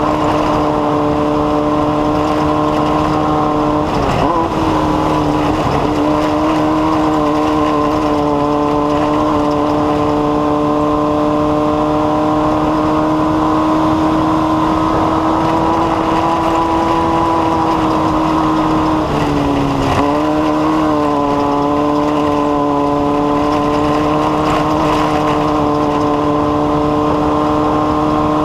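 An engine running at steady revs, a loud constant drone that dips briefly in pitch twice, about four seconds in and again around twenty seconds in, before settling back.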